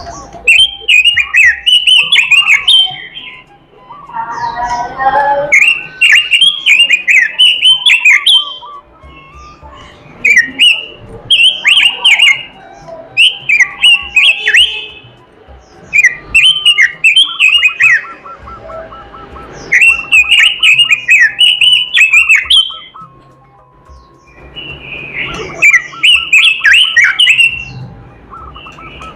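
Pekin robin (red-billed leiothrix) singing loudly in bursts of rapid, warbling chirps, each phrase about two to three seconds long and repeated every few seconds, with softer, lower chirps in the pauses.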